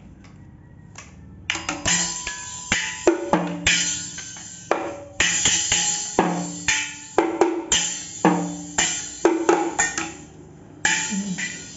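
A children's toy drum set being hit with sticks: a quick, uneven run of strikes on small plastic-headed drums and a thin metal cymbal, many hits ringing on briefly. The hitting starts about a second and a half in and pauses briefly near the end.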